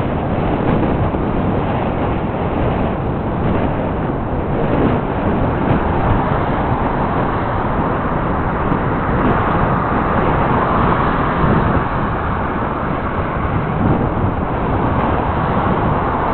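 Steady rushing wind and road noise on the microphone of a camera riding along on a moving bicycle, swelling slightly about halfway through.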